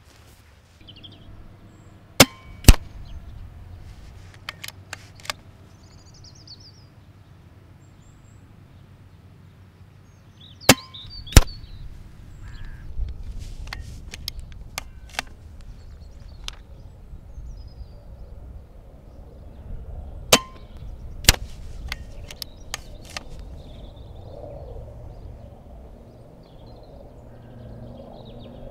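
BSA Ultra CLX pre-charged pneumatic air rifle with its supplied silencer firing three shots. Each shot is a sharp report followed within a second by a second sharp crack, with lighter clicks between the shots. A low wind rumble sits on the microphone.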